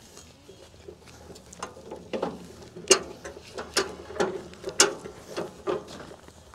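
Heavy paper cement sack crinkling and crackling as it is gripped and pulled at by hand to open it: an irregular run of sharp paper crackles starting about a second and a half in.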